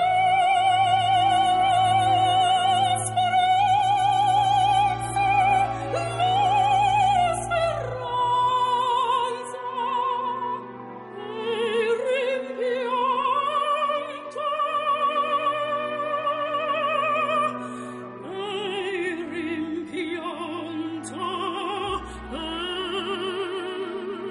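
Operatic singing over classical accompaniment: a voice holds long notes with a wide vibrato, moving from one sustained pitch to the next.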